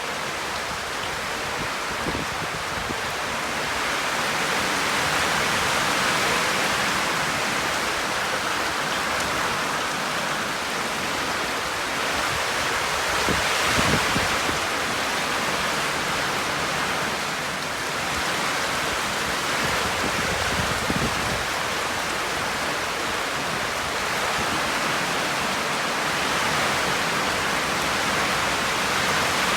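Heavy rain and strong storm wind: a steady rushing that swells and eases. A couple of brief low thumps near the middle are wind gusts hitting the microphone.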